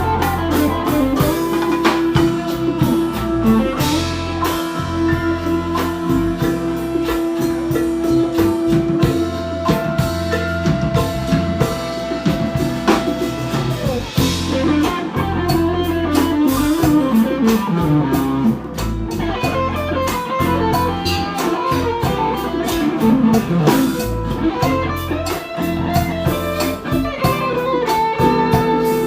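Live band music: an electric guitar plays a lead line with long held notes and sliding bends, over bass and a drum kit.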